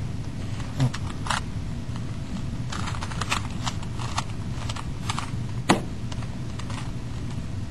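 Plastic Rubik's cube clicking as its layers are turned by hand, in irregular runs of short clicks, one sharper click a little before the end, over a steady low hum.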